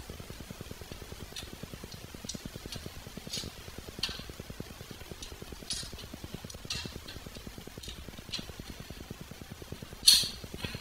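Light metallic clicks and clinks of a wrench and loose parts on a dirt bike's steel brake pedal and footpeg mounts, scattered about a second apart, with one louder sharp metal clank near the end.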